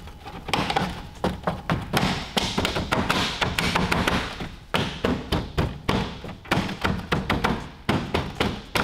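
A gloved hand pressing and smacking a plastic honeycomb front grille to seat it in a Ford Focus ST's bumper: a run of sharp plastic taps and thumps, a few a second.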